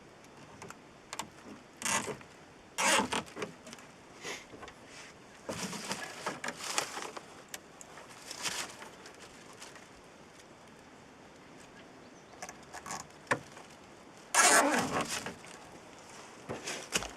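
Irregular rustling and clicking of plastic zip ties and Ziptie plugs being handled and fitted against an ABS grill block, in short bursts with the loudest near the end.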